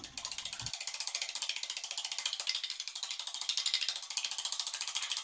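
Two raw eggs being beaten with a metal utensil in a small stainless steel cup: rapid, even clicking of metal striking the cup.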